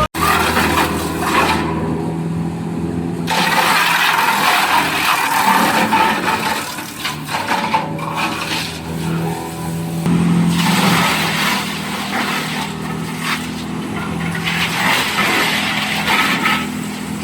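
Wood-recycling chipper or grinder running under load, its engine holding a steady hum while wood is broken up in surges of cracking and grinding that come and go.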